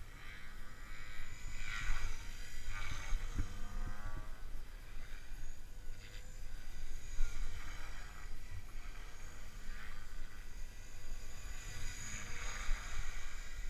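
Whine of a Gaui X3 radio-controlled electric helicopter's motor and rotors in flight, swelling and fading in pitch and loudness as it passes, over wind rumbling on the microphone.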